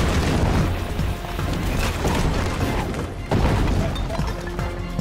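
Cartoon soundtrack: dramatic music mixed with rumbling booms and crashing sound effects, with a sudden change about three seconds in.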